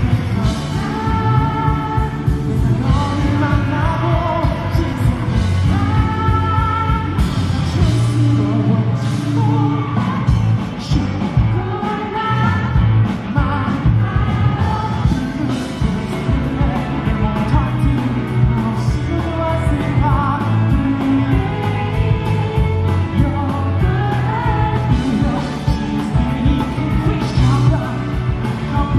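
A band playing a pop-rock song live, a male lead vocal singing over drums, bass and guitars.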